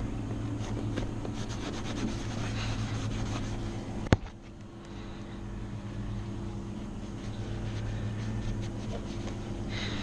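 A rag wiping over the dirt bike's plastic fender and side panel with scratchy rubbing strokes, over a steady machine hum. One sharp click about four seconds in.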